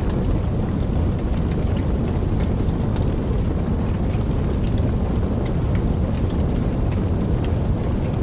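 Wood fire burning, with a steady low rush of flame and many small sharp crackles and pops scattered throughout.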